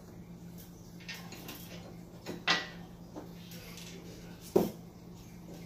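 Two sharp metal knocks about two seconds apart, the first with a brief ring, as hinge hardware is fitted to a steel tubular Jeep door, over a steady low hum.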